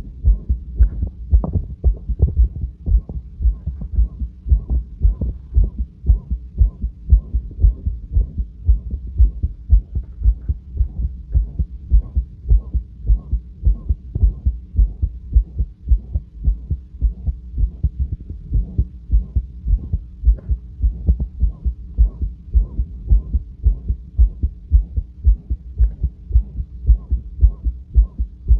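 A heart heard through a stethoscope, beating in a steady, calm resting rhythm of regular thuds, with a loud, harsh whooshing heart murmur over the beats.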